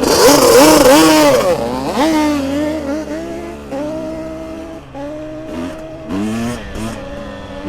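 Two-stroke off-road engine revving hard, its pitch rising and falling several times in the first two seconds, then running steadier under throttle with a few short blips.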